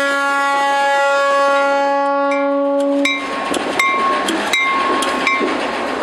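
Freight locomotive's air horn sounding one long, steady multi-note blast that cuts off about halfway through. Then the rolling train runs on with a run of sharp metallic clanks, some of them with a brief ringing squeal.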